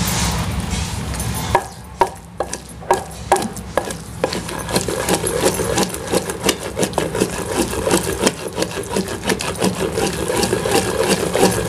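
A wooden pestle pounding and rubbing around a large mortar, grinding soaked whole red chillies and garlic into a thick chutney paste. A few separate knocks start about a second and a half in and quicken into a fast, even run of grinding strokes, several a second.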